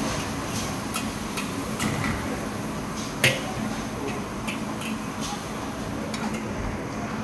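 Metal spatula clinking and scraping against a large pan of frying oyster omelette, with one sharp clank about three seconds in, over a steady frying hiss.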